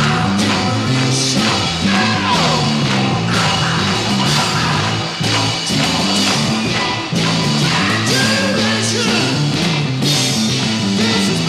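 Live rock band playing a blues-rock passage: electric guitar with sliding bends over a stepping bass line and steady drums with cymbals.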